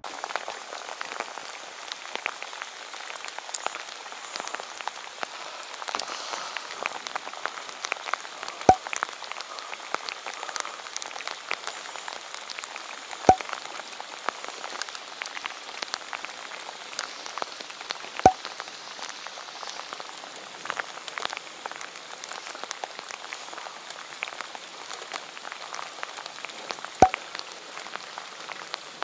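Heavy rain falling on the lake surface: a steady, dense patter of drops close to the microphone. Four sharper, louder taps stand out from it at irregular intervals.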